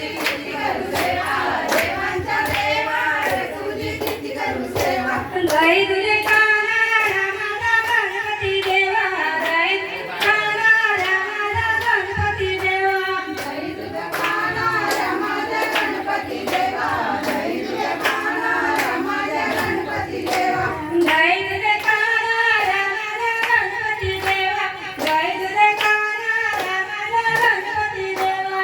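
A woman singing a traditional Marathi Ganpati devotional song, with a steady beat of hand clapping under the melody.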